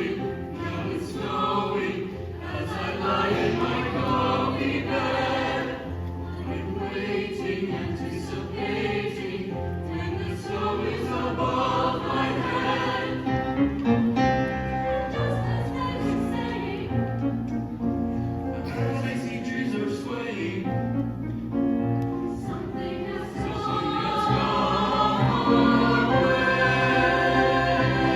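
Mixed choir singing in several voice parts, growing louder about three-quarters of the way through.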